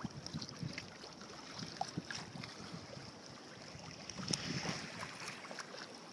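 Choppy sea water lapping and slapping against a sea kayak's hull in many small, irregular splashes over a steady wash of moving water.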